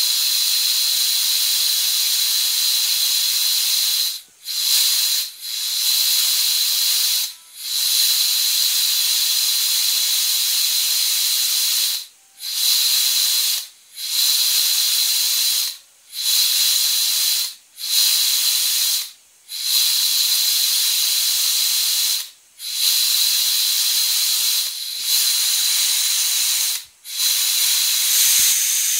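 Compressed air hissing steadily from a trigger-type tyre-inflator gauge's air line as it pressurises an HKS adjustable wastegate actuator, with a whistling edge to the hiss. About a dozen times, from a few seconds in, the air cuts off sharply for half a second and then resumes as the trigger is let go and squeezed again.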